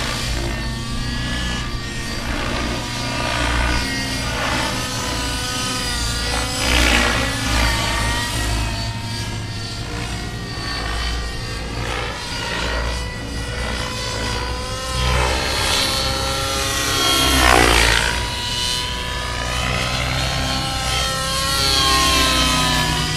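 Align T-Rex 700 Nitro radio-controlled helicopter in 3D aerobatic flight: its nitro glow engine and rotor blades run continuously. The pitch keeps rising and falling as the manoeuvres load and unload the rotor, with a few sweeping swells as it passes.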